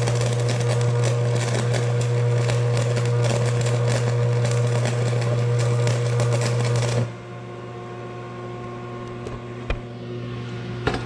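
Stick-welding arc crackling and sizzling steadily as a 7018 rod burns on DC positive, fed by a Vulcan Commander 225 transformer welder, over a strong steady hum. About seven seconds in the arc breaks off suddenly, leaving only the welder's quieter steady hum.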